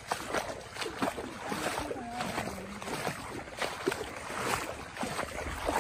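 Bare feet splashing and squelching through shallow muddy water as several people wade along in single file, with an irregular run of splashes, several a second.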